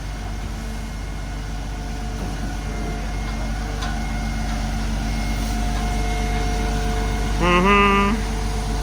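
Concrete pump truck's engine running steadily. A short vocal call comes near the end.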